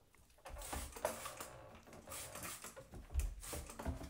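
Quiet handling of a plastic toilet seat and lid being lowered onto the bowl and a trigger spray bottle being worked, with rustling and a few soft knocks, the clearest about three seconds in.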